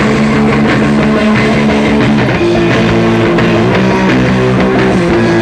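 Live rock band playing the instrumental intro of a song, with electric guitar chords over bass and drums, loud and steady.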